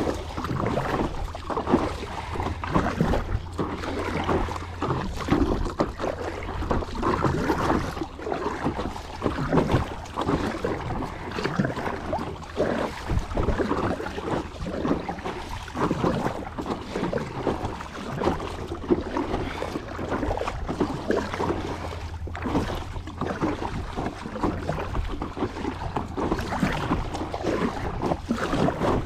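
Water splashing and lapping irregularly around a paddled kayak, with wind rumbling on the microphone.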